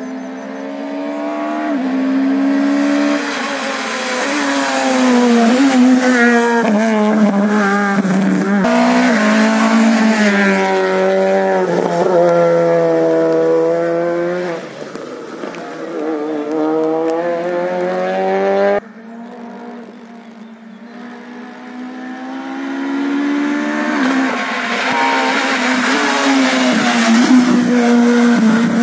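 Rally cars at full throttle on a wet asphalt stage, their engines revving hard and climbing in pitch through repeated gear changes as they approach and pass. The sound cuts off abruptly twice, at edits between cars.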